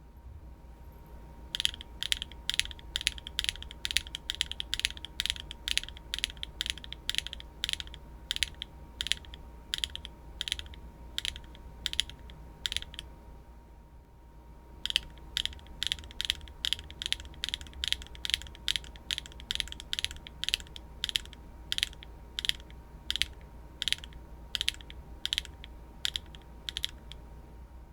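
HMX mechanical keyboard switches being typed in fast runs of sharp key clacks, with a pause of about two seconds near the middle between two runs.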